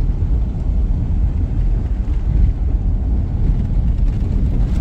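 Car driving, heard from inside: a steady low rumble of road and engine noise.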